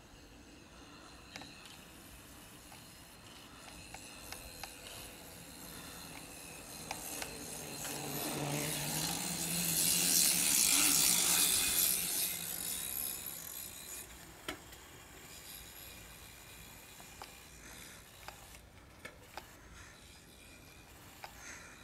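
A bicycle coasting by on its rear wheel: the tyre rolls on asphalt and the freewheel ticks. The sound grows louder as the bike nears, is loudest around the middle, and fades as it rides away.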